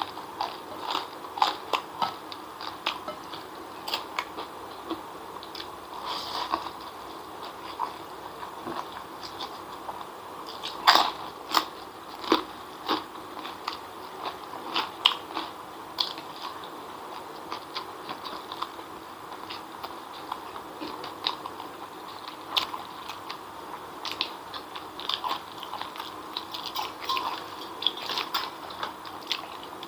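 Close-up mouth sounds of a person eating spicy chicken feet and fried noodles by hand: irregular wet chewing, smacking and crunching, with a louder one about eleven seconds in.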